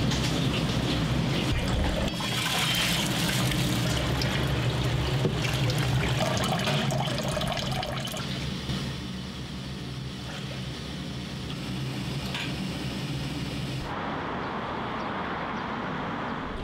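Water running from a curved metal tap spout into a large stainless-steel pot, a steady pour over a constant low kitchen hum. About three-quarters of the way through, the water gives way to quieter outdoor background sound.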